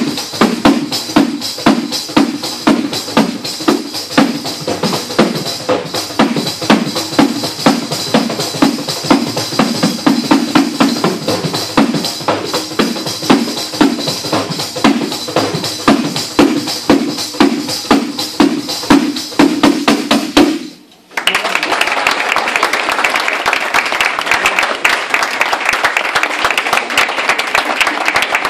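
Tambourine played solo in a fast, steady rhythm of strong strokes on the skin with the jingles ringing throughout. It stops abruptly about three quarters of the way through, and applause follows.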